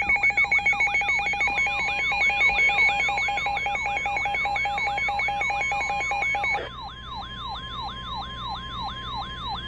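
Electronic emergency alert tones layered together: a long steady alarm tone, a rapid alternating two-tone beeping that stops about two-thirds of the way in, and repeating falling siren sweeps, about three a second.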